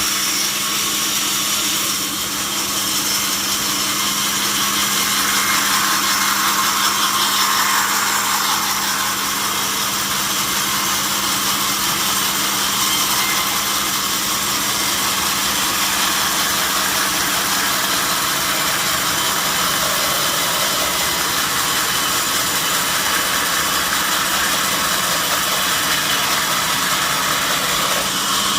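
Sawmill saw cutting through a mahogany log: a steady hum under an even, loud hiss of cutting that holds throughout.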